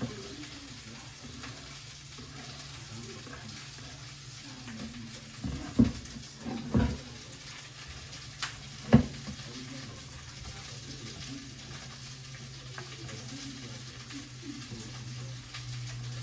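A few sharp knocks of items being handled and set down on a kitchen counter, the loudest about six and nine seconds in, over a steady low hum and hiss.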